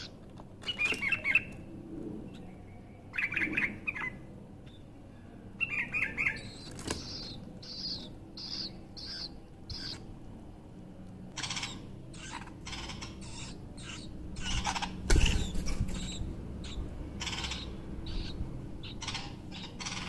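Red-vented bulbuls calling at a feeding: three short bursts of rapid chirps in the first six seconds, then a run of short high chirps through the second half. A loud flurry of wingbeats comes about fifteen seconds in as the adult takes off.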